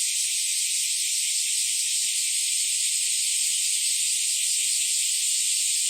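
Chorus of bear cicadas and kaempfer cicadas singing together: a dense, unbroken high-pitched buzzing that holds steady throughout.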